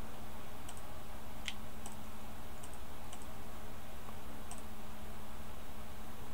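About six scattered clicks from computer use, some in quick pairs, over a steady low electrical hum.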